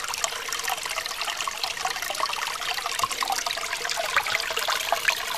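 Water trickling and babbling steadily, as from a small stream.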